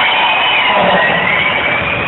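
Loud crowd noise with a single high tone wavering slowly up and down over it.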